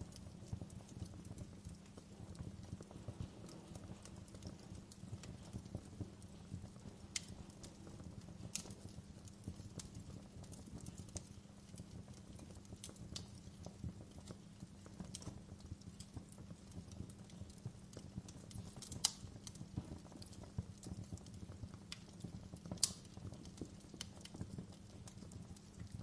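Wood logs burning in an open fireplace: a steady low crackle with sharp snapping pops here and there, the two loudest pops coming a few seconds apart in the last third.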